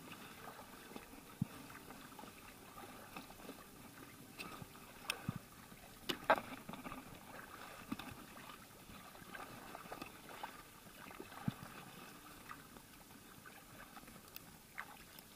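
Faint water sounds around an inflatable drop-stitch kayak, with a few light knocks and clicks as the paddle is moved and laid across the boat. The sharpest knock comes about six seconds in.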